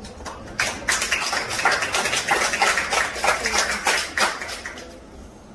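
A small group of onlookers clapping by hand: a patter of many quick claps that starts about half a second in and fades out near the end.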